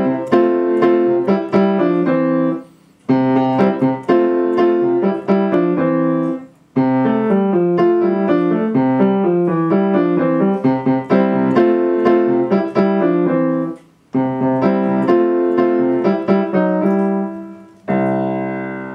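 Piano playing a short piece in four phrases with brief pauses between them, ending on a held chord that dies away.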